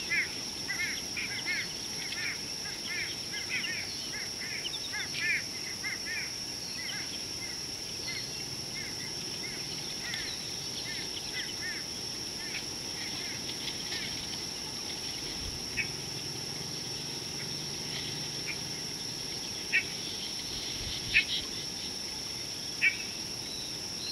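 Bush soundscape: a steady high-pitched insect drone throughout, with a bird repeating quick, arched call notes over the first several seconds. Near the end come four short, sharp chip-like calls, the loudest sounds.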